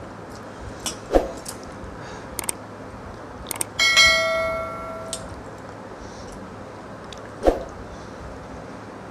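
Subscribe-button animation sound effect: a couple of quick clicks, then a bell-like ding ringing out and fading over about a second. A short sharp knock comes about a second in, and another near the end.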